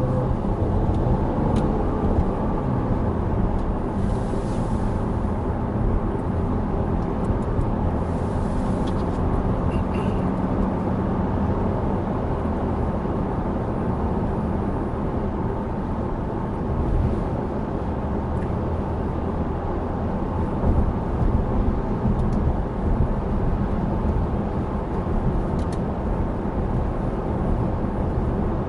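Cars driving at a steady pace: a continuous engine drone with road and tyre noise.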